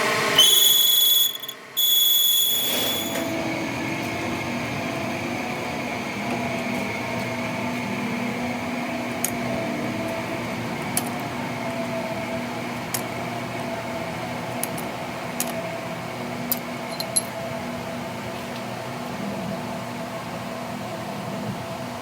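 A workshop machine runs with a steady hum. A high-pitched whine sounds over it for the first three seconds, and light clicks come now and then.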